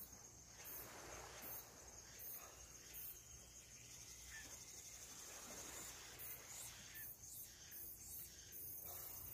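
Insects chirping faintly: a steady high-pitched trill, with higher chirps that pulse on and off in blocks.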